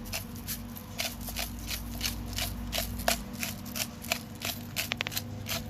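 Hand-twisted spice grinder grinding seasoning onto a raw chicken: a steady run of short crunching clicks, about three to four a second.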